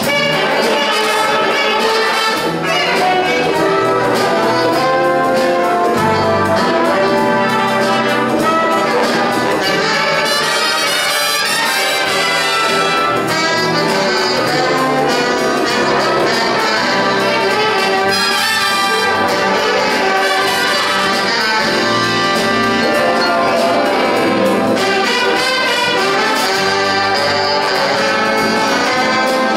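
Student big band playing a jazz chart live: full brass section of trumpets and trombones with saxophones, over drum kit and cymbals.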